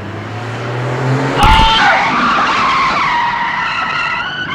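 Car engine revving up, then tires squealing in a long skid from about a second and a half in until near the end, as the car brakes hard.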